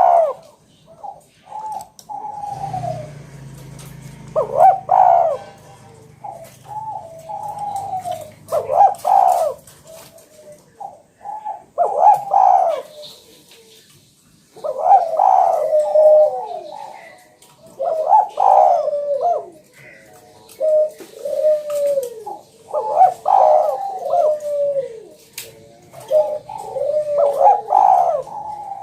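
Spotted dove (Javan tekukur) cooing over and over in repeated phrases of low coos that dip in pitch, a new phrase every couple of seconds.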